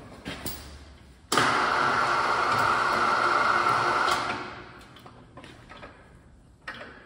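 Electric chain hoist running for about three seconds, starting abruptly about a second in and stopping near the middle, with light metal clicks and knocks before and after.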